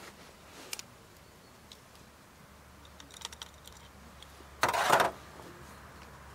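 Loading a flintlock rifle: a few light metallic clicks as a brass powder measure is handled at the muzzle, then a short sandy hiss of about half a second, over four seconds in, as the black powder charge is poured down the barrel.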